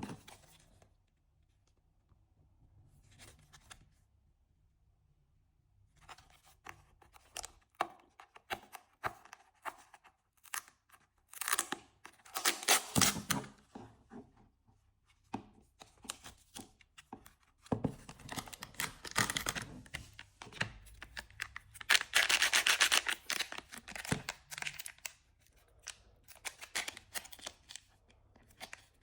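Packaging being opened by hand: a series of tearing and rasping sounds mixed with short clicks and handling knocks, with a few longer tears along the way.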